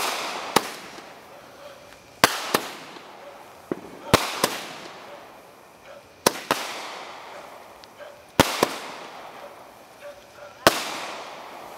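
A multi-shot consumer fireworks cake firing into the sky, six shots about two seconds apart. Each shot is a pair of sharp bangs about a third of a second apart, trailing off into a fading hiss.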